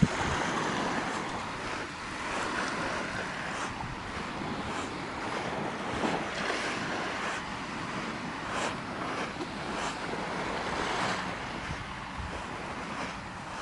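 Small waves washing onto a pebble beach: a steady hiss of surf that swells and eases every few seconds.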